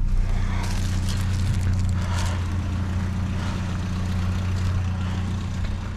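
Vehicle engine idling with a steady low hum, under faint rustling and light clinks of small metal scrap being handled.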